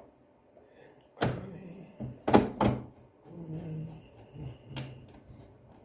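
Four hard knocks: one about a second in, two in quick succession soon after, and a last one near the end.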